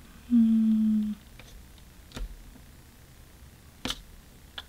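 A woman hums a single short, steady 'mm' while deciding, the loudest sound here. Afterwards come a few faint taps and paper sounds as a square paper cutout is moved across a planner page.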